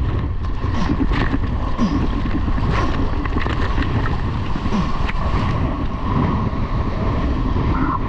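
Strong wind buffeting the microphone of a surfboard-mounted camera, with water rushing and splashing against a foam surfboard in choppy, windblown surf; scattered short splashes stand out.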